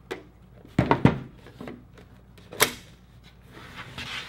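Handling noise from a HeartSine Samaritan PAD 350P AED and its pad pack: a few sharp plastic clicks and knocks, the loudest as the unit is set down on the table. This is followed by a soft rubbing rustle near the end as its carry case is handled.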